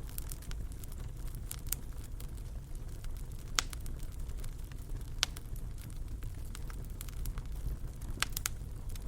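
Wood fire in a fireplace crackling over a steady low rumble, with sharp pops about a third of the way in, just past halfway, and a quick pair near the end.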